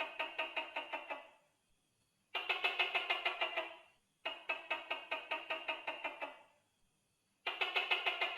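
Gecko calling: bursts of rapid, clicking chirps at about seven a second, each burst lasting about a second and a half to two seconds, repeated four times with short pauses between them.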